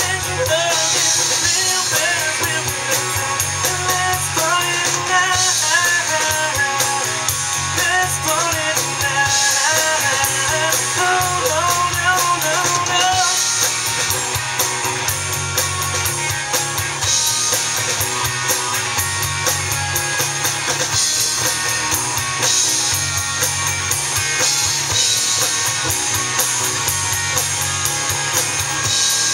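Live rock band playing: electric and acoustic guitars, electric bass and drum kit, with a melodic lead line weaving over the band through the first half.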